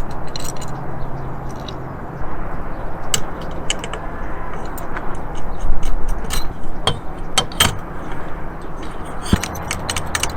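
Small metal hardware clinking, clicking and scraping as antenna mounting parts are handled and tried for fit, over a low background hum.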